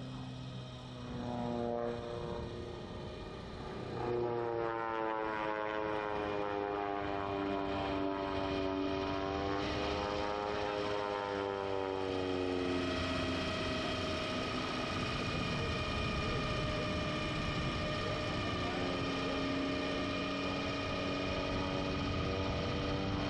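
Zlin Z-142C's piston engine and propeller droning overhead during an aerobatic display. The drone gets louder about four seconds in, its pitch wavers up and down through the manoeuvres, then holds steady for the second half.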